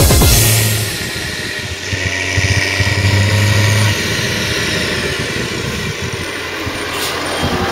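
Diesel engines of a Claas Jaguar 970 forage harvester and a tractor running steadily while harvesting silage. About four seconds in the sound changes to a New Holland tractor's engine running as it pulls a silage trailer across the field.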